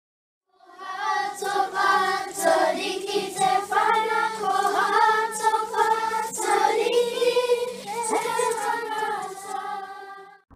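A group of children singing together in unison, a kapa haka song. It starts about half a second in and stops abruptly near the end.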